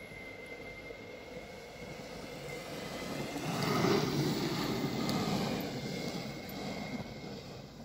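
Meepo Mini 2 electric skateboard rolling past on asphalt. The rumble of its wheels on the road grows as it comes close about four seconds in, then fades as it rides away.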